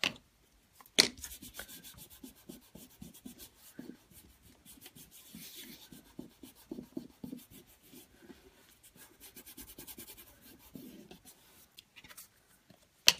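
Fingers rubbing and pressing glued tissue paper down onto card, a soft, uneven papery rubbing. A sharp tap sounds about a second in and another near the end.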